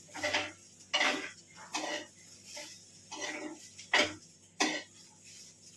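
Spatula scraping and knocking against a kadai while fried rice is stirred: about seven short strokes in an even rhythm, roughly one every 0.7 seconds.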